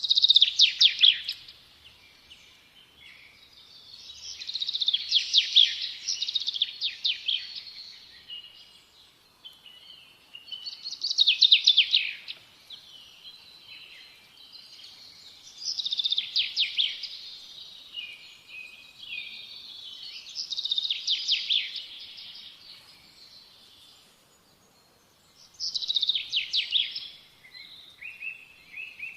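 Small songbird singing: a loud phrase of rapid trilled notes every four to five seconds, six times, with quieter twittering chirps in between.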